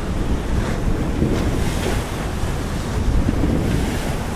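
Strong wind buffeting the microphone over the steady rush and splash of waves and bow wave along the hull of a sailing yacht running powered up in rough seas.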